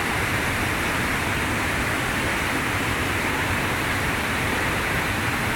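Waterfall on a Carpathian mountain river, its water falling and rushing in a steady, loud roar of white noise.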